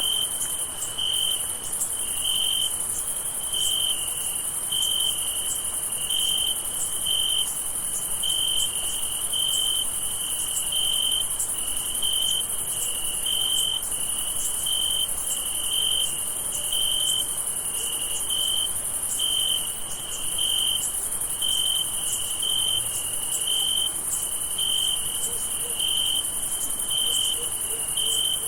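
Crickets chirping on a summer night: one cricket's clear chirp repeats evenly, a little more than once a second, over a steady high-pitched insect trill.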